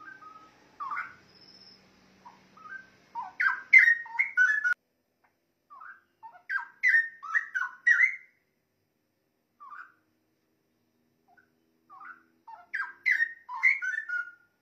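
Straw-headed bulbul (cucak rowo) singing: three phrases of rich, quick warbling notes, each lasting a second or two, with silent pauses between them and a single short note in one of the gaps.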